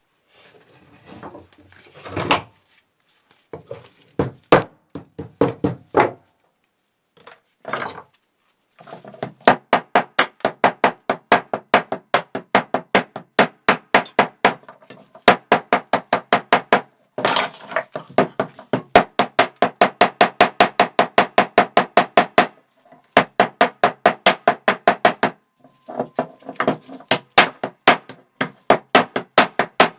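Hammer blows, a few scattered strikes and then long quick runs of even blows at about four a second, with short pauses between the runs.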